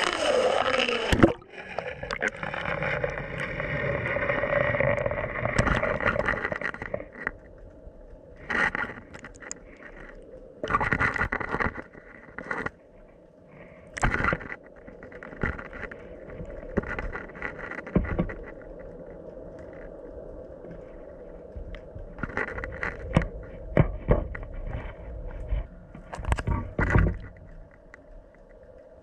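Handling and water noise from an underwater camera being put into a river. A rushing splash comes at the start, then irregular bursts of scraping and knocking from the camera housing, over a faint steady hum.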